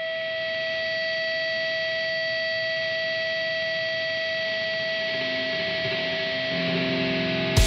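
Music: a song's intro, a steady held electronic tone with low notes coming in during the last couple of seconds, and the drums starting right at the end.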